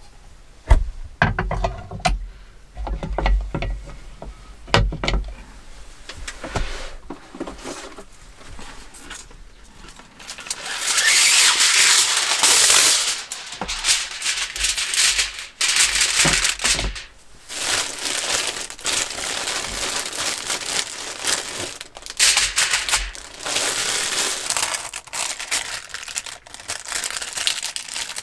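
A few sharp knocks and clacks as a metal hot-sandwich maker is handled, then a non-stick cooking sheet is pulled from its box and torn off with a loud rustle, and crinkles in repeated bursts as it is handled and laid into the pan.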